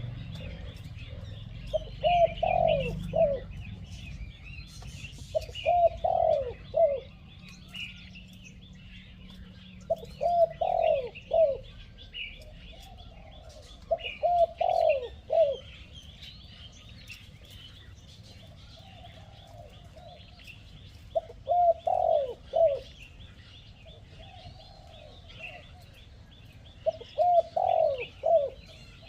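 A spotted dove, kept as a caged decoy, cooing in repeated phrases of several low notes, each phrase about a second long and a few seconds apart. Other small birds chirp high and steadily behind it.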